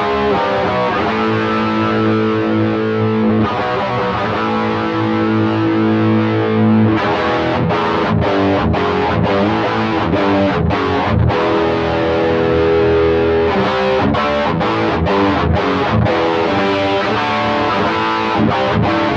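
Electric guitar played through an Xvive T1 Golden Brownie distortion pedal: held distorted chords for the first several seconds, then choppy riffing broken by short stops.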